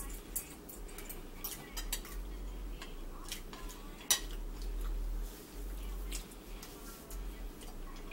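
Metal forks clinking and scraping against ceramic dinner plates, with scattered sharp clinks. The loudest comes about four seconds in.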